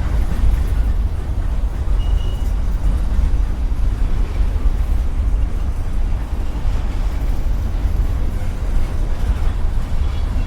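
Freight train rolling past close by with a steady deep rumble, and a brief high squeal about two seconds in.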